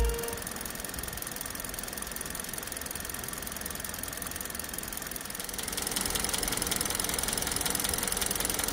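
Kia Rio 1.4 Kappa G4LC four-cylinder petrol engine idling steadily, its hydraulic lifters just replaced with VAG parts to cure a knock when warm. It grows louder about five and a half seconds in.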